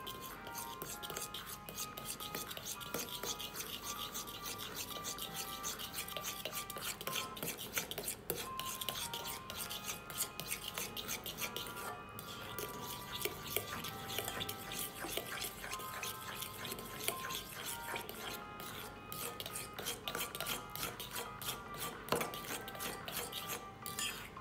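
A hand-held utensil beating a butter mixture in a bowl, scraping and clinking against the bowl in rapid repeated strokes. Light background music with a simple melody plays over it.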